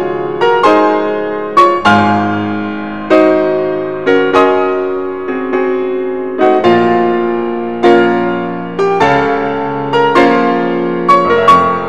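Slow, gentle piano background music: notes and chords struck about once a second and left to fade.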